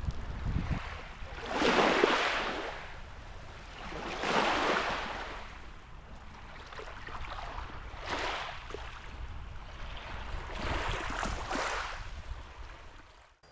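Small waves of Lake Superior washing over a pebble beach, in four slow swells that rise and fade a few seconds apart.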